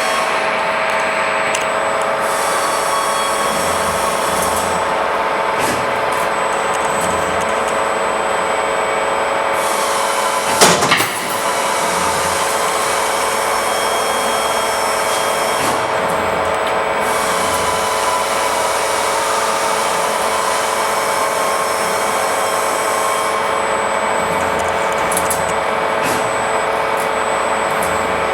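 Wire bending machine running: a steady motor hum with several held tones, and a hissing noise that comes and goes in repeated cycles as the machine works. A single loud clank sounds about ten and a half seconds in.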